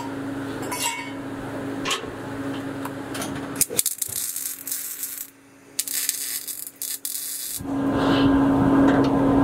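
Stick (arc) welding on a steel muffler: a few metal clinks over a steady shop hum, then the arc crackles and sizzles for a few seconds. Near the end a much louder steady noise with a hum sets in.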